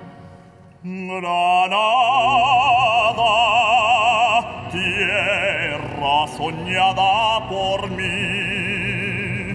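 An orchestral chord dies away, and about a second in an operatic tenor comes in, singing with a wide vibrato over the orchestra's accompaniment.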